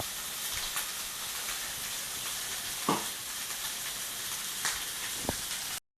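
Steaks sizzling in a smoking-hot frying pan, seared only for colour after sous-vide cooking: a steady hiss with scattered spits and crackles, and a couple of sharp knocks. The sound cuts off abruptly near the end.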